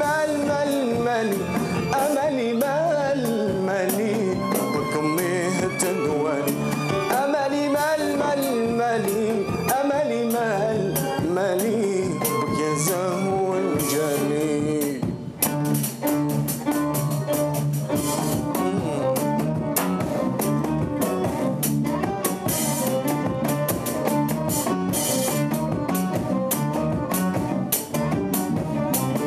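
Algerian chaabi band playing live, a violin carrying a winding melody over guitar, keyboards, bass and drum kit. About halfway the melody drops out and the drums and rhythm section carry on with a steady, busy beat.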